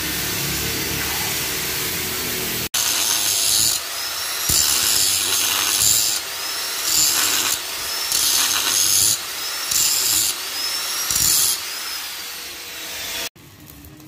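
A gas torch hisses steadily as it heats a steel truck wheel rim for about the first three seconds. Then an angle grinder grinds the rim in about seven short passes, its motor whine rising and falling each time it comes off and goes back onto the steel. This is preparing the cracks around the bolt holes for welding.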